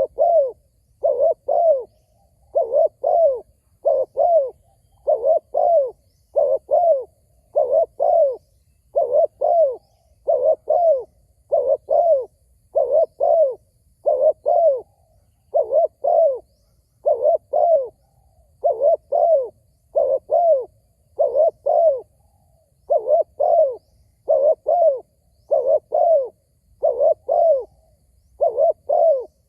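Male spotted dove cooing over and over: short two- to three-note coo phrases about once a second, without a break.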